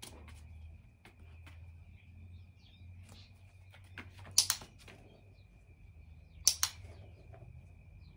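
A dog-training clicker sounding twice, each a sharp double click (press and release), about four and a half and six and a half seconds in, marking the moment the dog gets into position on the platform. Between the clicks come light ticks of the dog's claws moving on the pavers and foam mat, over a faint steady high whine.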